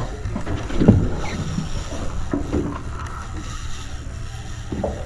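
Wind buffeting the microphone on a small boat at sea over a steady low rumble, broken by a few short muffled knocks or bumps, the loudest about a second in.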